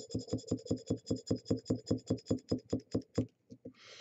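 A plastic syringe dispensing flavour concentrate into a small glass bottle, its plunger chattering in a rapid run of clicks, about seven a second, that slow and die away about three seconds in.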